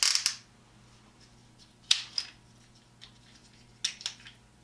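Small hand clamps being handled: a loud snap at the start, then short sharp clicks and clacks about two seconds in and again near four seconds.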